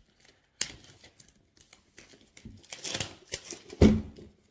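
A cardboard trading-card box and its packaging being handled as it is opened: a sharp click, then rustling and crinkling about three seconds in, and a heavy thud near the end, the loudest sound.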